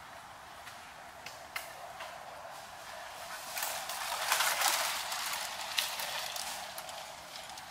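Outdoor ambience: a steady rushing hiss with scattered light clicks, swelling about four seconds in and easing off again.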